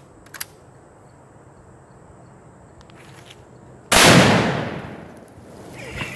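A Tannerite charge detonating, set off by a .17 HMR rifle shot: one sudden, very loud blast about four seconds in, its echo dying away over a second or so. A couple of faint clicks come just before, about half a second in.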